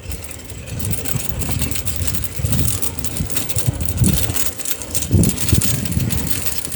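Noise of riding a bicycle along a street: an irregular low rumble with scattered rattles and clicks.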